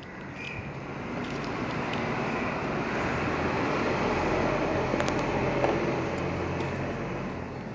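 A passing motor vehicle: a rushing noise with a low rumble that swells over the first few seconds and fades again near the end.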